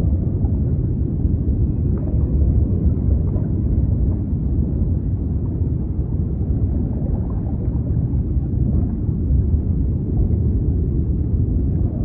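Steady, low, rumbling sea noise used as a sleep sound, heavy in the bass with no breaks or distinct wave surges.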